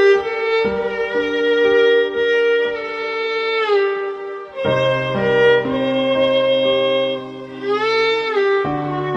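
Music: a violin-like melody with sliding, wavering notes over low held chords.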